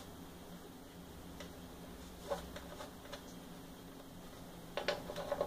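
Faint, light clicks and taps of wires and a small fuse block being handled inside the open chassis of a Technics RS-M18 cassette deck: a single click a little after two seconds in, then a quick run of clicks near the end.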